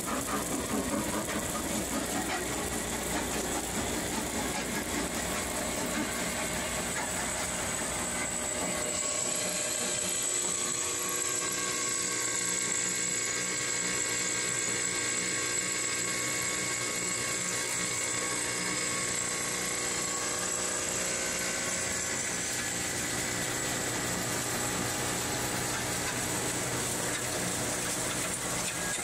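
A one-ton-per-hour ore-milling plant running steadily as quartz ore is fed through it, with a constant mechanical drone. The mix of the sound shifts about nine seconds in.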